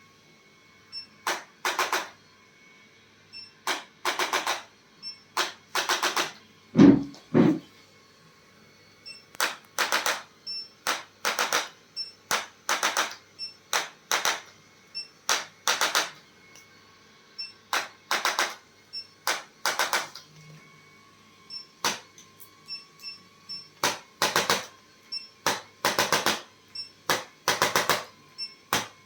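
A handheld percussive device firing dozens of short bursts of rapid clicks, often two to four bursts in quick succession with pauses between groups. A pair of louder low thumps comes about seven seconds in.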